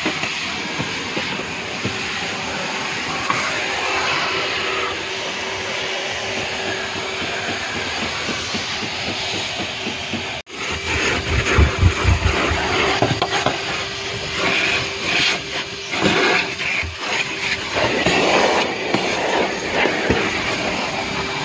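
Vacuum cleaner running, a steady airy hiss over a constant hum, as the interior is vacuumed. In the second half, irregular bumps and scraping come in as the hose nozzle works over the floor carpet.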